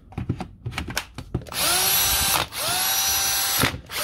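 A few sharp clicks as the rebuilt M18 battery pack is latched onto a Milwaukee M18 cordless drill. Then the drill's motor is run twice for about a second each, a whine rising in pitch and levelling off, with a third run starting at the very end. The drill is running on the rebuilt pack, a test that it powers the tool.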